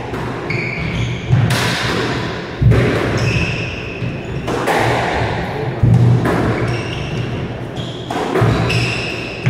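A squash rally: the rubber ball is struck hard by the rackets and cracks off the walls several times, each hit echoing in the enclosed court. Short high squeaks from the players' shoes on the hardwood floor come between the shots.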